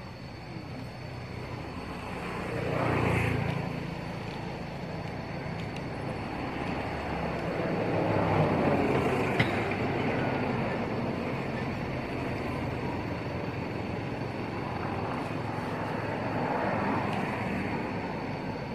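Road traffic: a steady low rumble with vehicles passing by, swelling and fading three times, and a single sharp click about halfway through.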